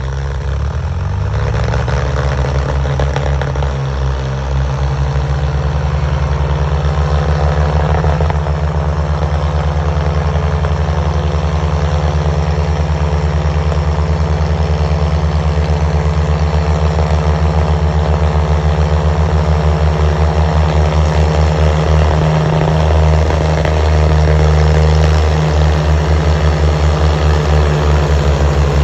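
Diesel engines of a New Holland 3630 and a Farmtrac 60 tractor running steadily under load, hauling a loaded sugarcane trolley. The engines keep up a low, even, throbbing beat.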